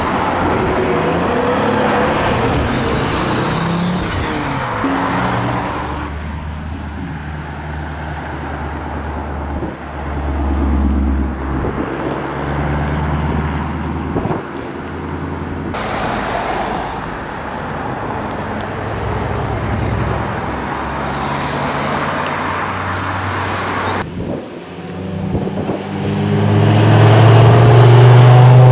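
Several sports cars accelerating away one after another, each engine revving up as it pulls away. Near the end the loudest is a Mk2 Ford Focus RS, its turbocharged five-cylinder rising in pitch under hard acceleration.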